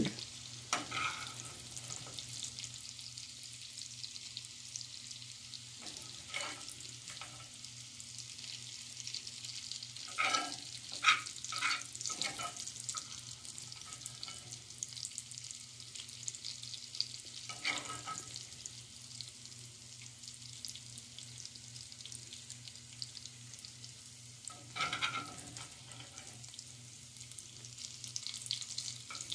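Onion bits frying in hot bacon fat in a cast iron skillet, a steady sizzle. A metal slotted spoon clinks and scrapes now and then, with a cluster of clinks about ten to twelve seconds in, as the onion is scooped out.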